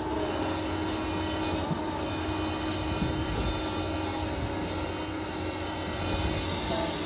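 Doosan crawler excavator's diesel engine running steadily under load while the bucket digs into sand.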